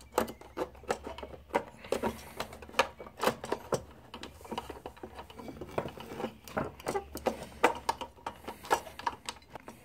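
Irregular small clicks and knocks from a BenQ W1070 projector lamp module, its metal cage and wire handle rattling against the plastic lamp bay as it is worked down and slid into place.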